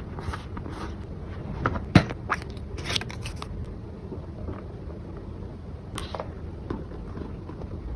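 Packaging being handled: a run of crackles and clicks, with a sharp knock about two seconds in and another about six seconds in.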